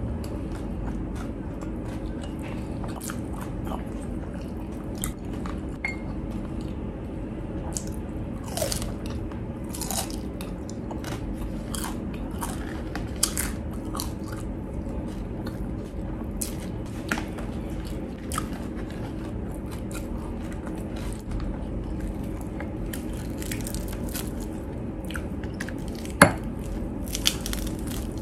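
Mouth-close crunching and chewing of deep-fried crispy pork, in scattered crisp bites over a steady low hum, with one sharp crunch near the end.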